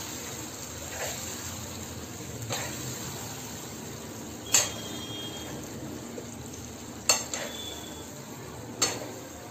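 Marinated chicken sizzling gently in a non-stick kadai as a metal spoon stirs it, with a few sharp clinks of the spoon against the pan, the loudest about halfway through and two more near the end.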